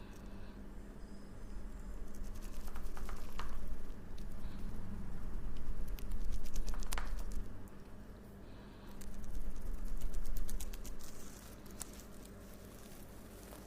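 Hands-on massage sounds: rubbing and pressing on skin and hair in swells a few seconds long, with scattered small clicks, the sharpest about seven seconds in.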